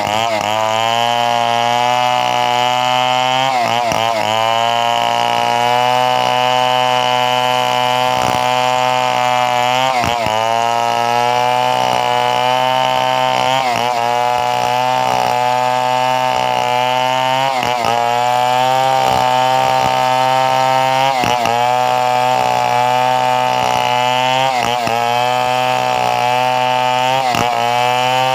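Two-stroke chainsaw running steadily at high revs while cutting coconut wood, its pitch sagging briefly every few seconds as the chain bites under load and then recovering.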